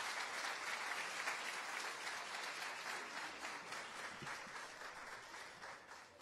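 Audience applause, many hands clapping at once, slowly dying away.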